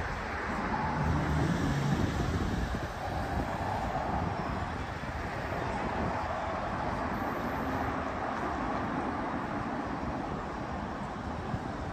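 Steady city traffic noise, a continuous even rumble of road vehicles with no single event standing out.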